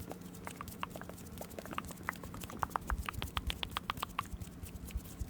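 ASMR mouth sounds: a quick run of short, sharp tongue clicks, several a second, thickest and loudest around the middle.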